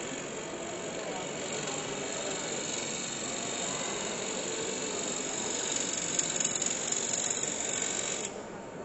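Wood-turning gouge cutting a spinning piece of olive wood mounted for two-axis (off-centre) turning on a wood lathe: a steady cutting noise that grows louder in the last few seconds and stops abruptly shortly before the end as the tool comes off the wood.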